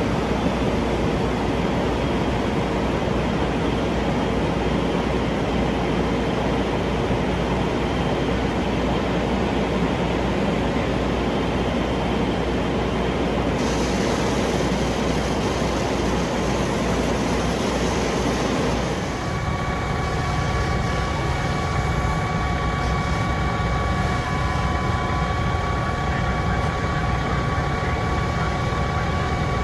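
Fire truck diesel engines running hard and steady to drive their pumps and aerial ladder, a continuous rumble with a rushing hiss. About two-thirds of the way through the sound changes to a steadier engine drone carrying several high whining tones.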